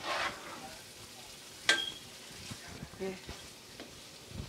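Spoon scraping and scooping cooked minced-meat filling out of a nonstick pot, with one sharp clink of the spoon against the pot under two seconds in and a few lighter knocks later.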